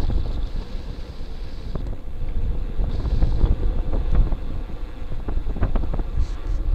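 Wind buffeting a bicycle-mounted camera's microphone as the bike rolls along, a strong low rumble, with many small clicks and rattles from the bike and camera mount jolting over the concrete.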